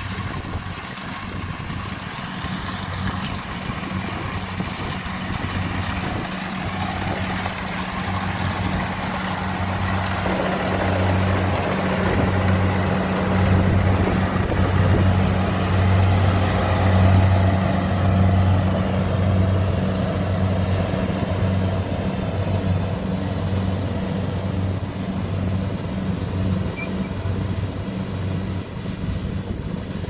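Kubota DC70 Plus combine harvester's diesel engine and threshing machinery running while it cuts rice: a steady low engine hum under a rushing mechanical noise. The noise swells about a third of the way in, loudest near the middle, then eases off.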